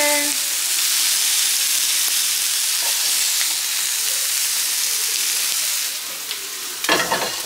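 Food sizzling steadily in a hot frying pan, easing slightly about six seconds in, with a few short knocks near the end.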